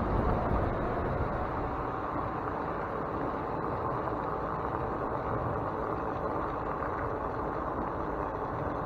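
Steady rushing noise of a bicycle ride on a paved path: wind buffeting the microphone mixed with tyres rolling on asphalt, easing slightly in the first second or two and then holding even.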